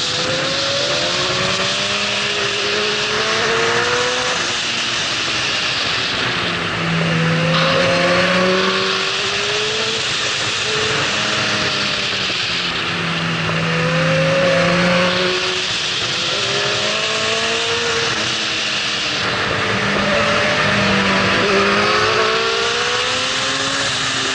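Yamaha R6 inline-four with a Termignoni full exhaust, heard from on the bike, revving up and easing off again and again so its pitch rises and falls, loudest in three pulls. A steady rush of wind over the microphone runs underneath.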